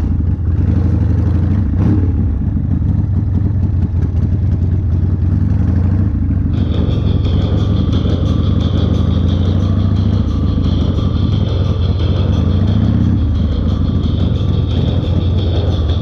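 1992 Harley-Davidson Fat Boy's 1340 cc Evolution V-twin running steadily while the bike is ridden.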